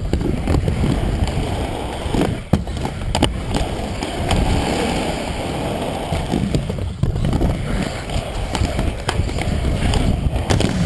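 Inline skate wheels rolling over skatepark concrete and ramps, a steady rumble broken by several sharp knocks.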